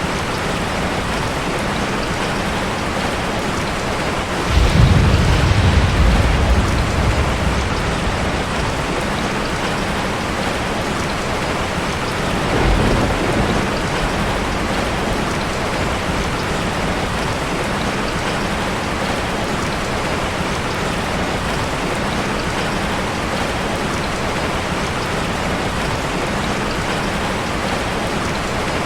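Steady rain falling. Two low rumbles of thunder break in: a loud one about four and a half seconds in that fades over a few seconds, and a weaker, shorter one about twelve seconds in.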